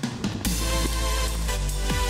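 Electronic dance music with a heavy bass line and deep kick-drum strokes that fall in pitch. The bass cuts out at the start and comes back in about half a second in.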